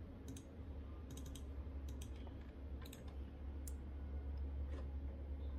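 Computer mouse and keyboard clicks, scattered and sharp, with a quick run of about four clicks a little over a second in, over a steady low hum.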